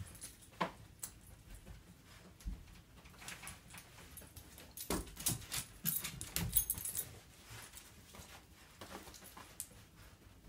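A small dog moving about as it searches: scattered thumps and taps of its paws as it jumps onto and off a bed and runs across a wooden floor, busiest around the middle.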